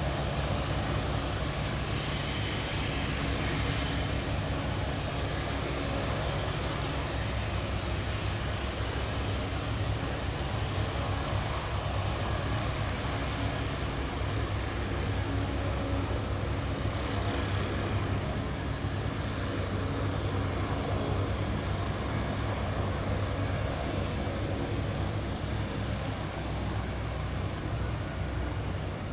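Turbine helicopter running steadily close by, the fast beat of its main rotor over the engine noise.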